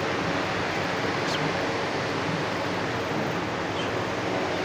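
Steady, even hiss of room noise.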